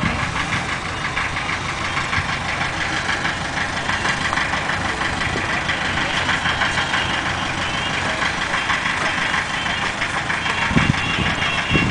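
Narrowboat's inboard engine running steadily with an even, rapid beat as the boat moves slowly.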